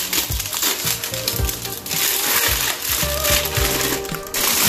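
Plastic wrapping rustling and crinkling as it is cut with scissors and pulled off a stainless steel exhaust silencer, with a few sharp clicks; the rustling is densest about midway and stops abruptly near the end. Background music with a steady low beat runs underneath.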